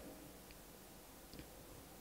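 Near silence: room tone, with two faint ticks.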